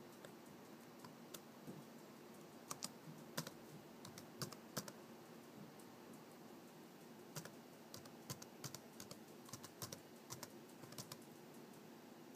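Faint typing on a computer keyboard: scattered key clicks in two runs, one about three to five seconds in and another from about seven to eleven seconds.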